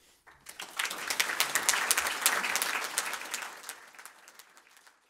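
Audience applauding: the clapping builds within the first second, peaks, and fades away over the last couple of seconds.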